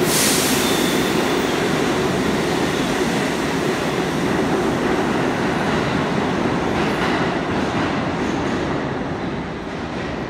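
Subway train running out of the station, a steady rumble and clatter of wheels on track that fades off near the end, with a brief high hiss right at the start.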